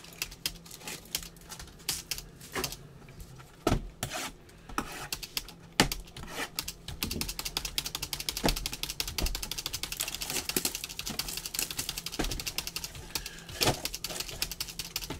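Trading-card boxes and wrapped packs being handled and set down on a table: a few separate knocks in the first half, then a long run of fast, light clicks through the second half.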